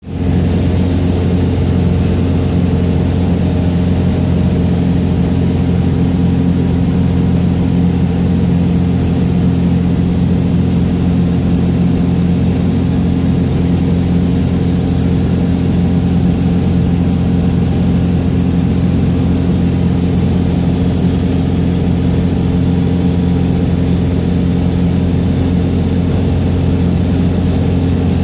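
Sonex light aircraft's engine and propeller droning steadily in flight, heard from the cockpit, with the same low pitch and loudness throughout: the engine is holding constant power.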